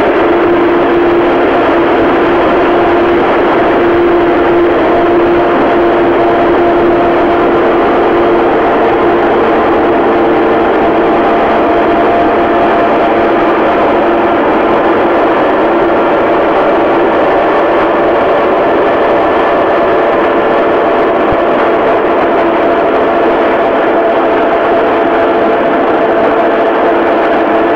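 Claas Lexion 480 combine harvester running as it harvests rice: a steady, loud machine drone with several held whining tones. A lower whine fades after about eight seconds as higher ones strengthen.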